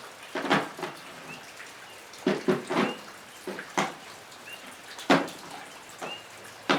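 Metal tools knocking and clinking as they are picked up and set down, about eight separate knocks, over steady rain on a metal roof. A bird chirps faintly a few times.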